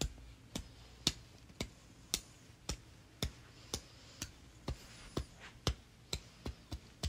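Fingertip flicks snapping against small paper cut-outs on a bedspread: sharp little clicks, about two a second, coming faster near the end.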